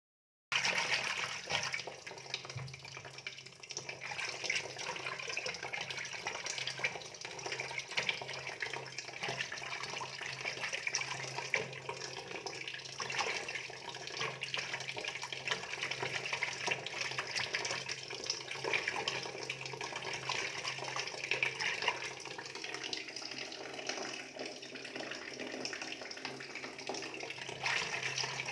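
Water splashing and trickling steadily, with a faint low hum underneath. It starts about half a second in.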